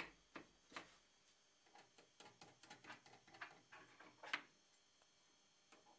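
Near silence with faint, scattered small metallic clicks as a hex lock nut is run along a threaded rod by hand; the loudest click comes a little after four seconds in.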